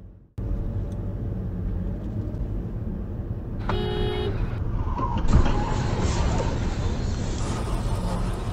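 Car driving at road speed, heard from inside: steady engine and tyre noise. A car horn sounds once, briefly, a little under four seconds in, a warning as another vehicle pulls across the road ahead, and the road noise grows louder from about five seconds in.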